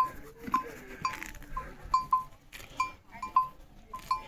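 Small bells clinking irregularly, two or three short ringing strikes a second.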